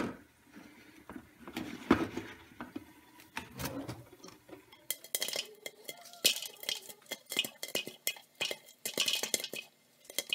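Popcorn kernels popping in a West Bend Stir Crazy electric popper, ticking against its plastic dome lid. The pops are sparse at first and come thick and fast from about five seconds in, as the batch of kettle corn gets going.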